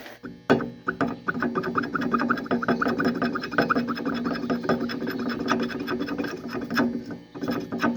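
Seized steel switch-stand foot latch being worked to free it: a fast, continuous run of metal scraping and clicking with a ringing metallic tone, starting about half a second in and stopping shortly before the end.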